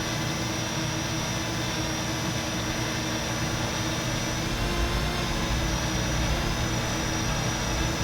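Parrot Anafi quadcopter's motors and propellers humming steadily in flight, with a high whine over the hum. A low rumble comes in about halfway through.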